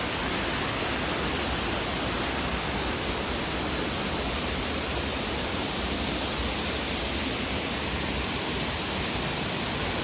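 MacKenzie Falls waterfall: a steady, unbroken rush of falling water.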